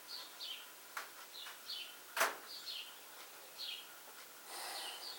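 A bird chirping over and over, faintly: pairs of short falling chirps about once a second. A sharp click about two seconds in.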